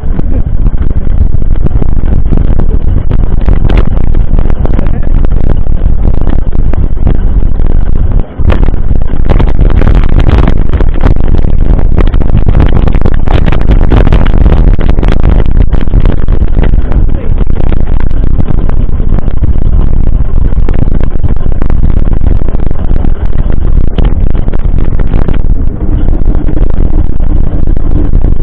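Heavy wind buffeting on the microphone with rattling and many sharp knocks, as from a mountain bike ridden fast over a rough trail.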